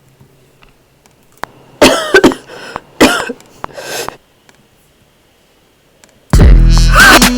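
A person coughing in several harsh, rough bursts. After a pause comes a much louder, distorted burst near the end that cuts off suddenly.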